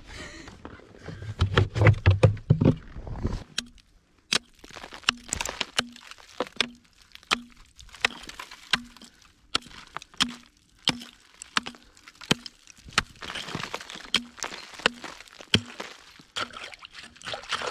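Axe chopping through lake ice that has refrozen 3–4 inches thick over an old ice-fishing hole. Steady, sharp strikes come about every 0.7 s, after a few seconds of low rumbling and thumps at the start.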